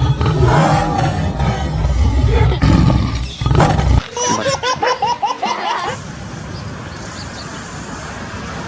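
A loud animal roar for the first few seconds, then a quick run of short, high, rising cries, about four or five a second.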